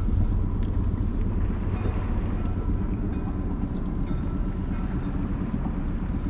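Wind buffeting the microphone on a small open dinghy on the water: a steady low rumble, with a faint steady hum behind it.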